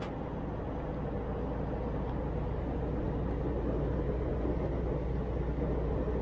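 Steady cabin noise of an Airbus A320-family airliner in flight, heard inside the cabin at a window seat beside the wing-mounted jet engine: a constant roar of engine and rushing air over a low hum, with the aircraft in descent toward arrival.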